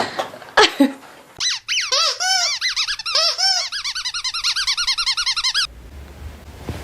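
A squeaky dog toy being chomped, giving a fast run of high-pitched squeaks that start about a second and a half in, speed up to about five a second, and stop near the end.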